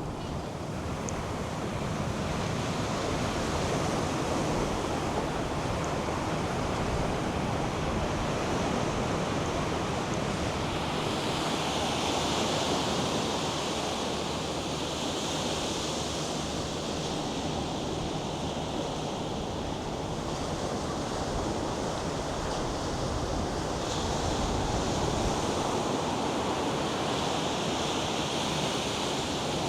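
North Sea surf breaking and washing up a sandy beach: a steady rushing hiss that swells twice, about midway and near the end, with wind rumbling on the microphone.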